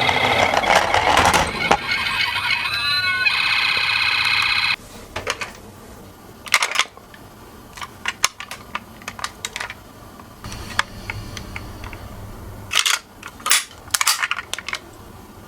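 Electronic ambulance siren from a toy minicar, sounding loudly for about the first five seconds with a brief warble partway, then cutting off suddenly. Afterwards there are only scattered light clicks and knocks.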